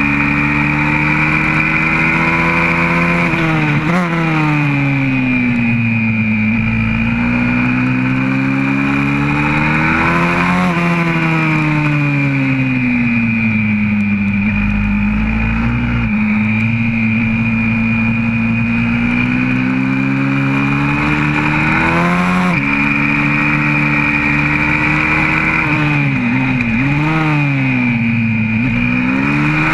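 Single-cylinder four-stroke engine of a YCF 125cc pit bike, heard on board, revving hard on a track. Its pitch climbs under acceleration, steps down abruptly at each gear change and sinks as the bike slows into corners.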